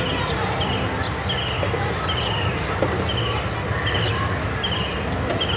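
Park ambience: a steady murmur of distant children's voices over a low outdoor rumble, with a short high chirp repeating a little more than once a second.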